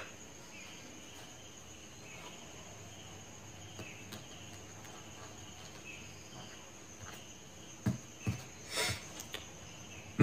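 Faint background noise with a thin, steady high-pitched whine and a few soft knocks near the end.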